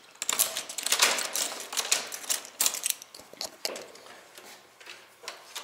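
Metal door lock and lever handle being worked: a quick run of clicks and rattles, loudest about a second in, then a few scattered clicks as the door is unlocked and opened.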